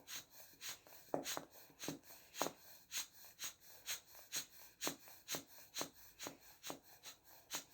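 Rubber inflation bulb of a sphygmomanometer squeezed rapidly, about two squeezes a second, each a faint short puff of air with a valve click, pumping up the blood pressure cuff.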